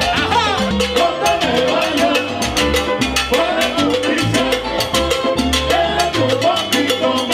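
Live salsa band playing: electric violin, electric bass and drums, with a lead singer on the microphone over a dense, steady beat.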